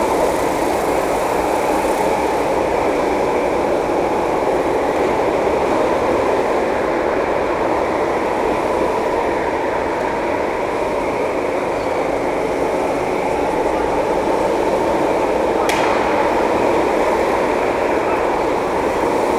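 Kart engine idling steadily, heard as a dense, even rumble through the kart-mounted camera, with one faint click near the end.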